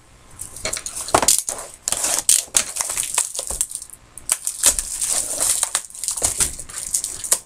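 Cardboard box of trading cards being picked up and opened by hand: an irregular run of sharp clicks, scrapes and crunches of the cardboard.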